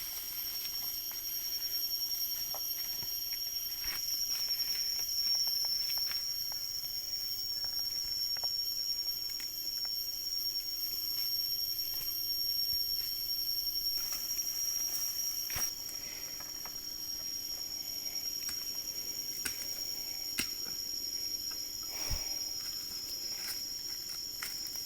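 Steady high-pitched insect chorus of the forest, with a few sharp clicks and snaps scattered through it, the loudest near the end.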